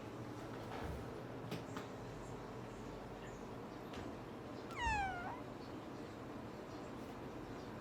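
A kitten gives one short meow that falls in pitch, a little under five seconds in. A few faint soft clicks sound earlier.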